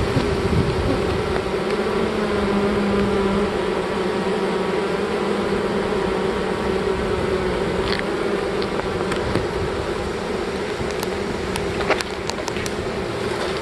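Honey bee swarm buzzing in a steady, unbroken drone, with a few light clicks near the end.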